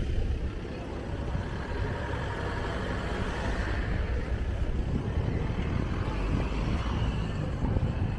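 Cars driving slowly past at close range, with the sound of their engines and tyres over a steady low rumble of outdoor street noise.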